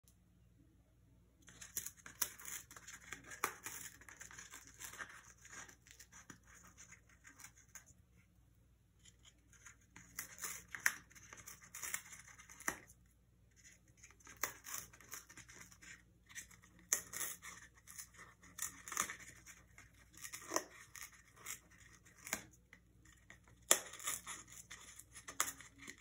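Congo African grey parrot tearing and chewing a cardboard toilet-paper tube with its beak: crackly ripping and crunching in bouts of several seconds, with short pauses between them.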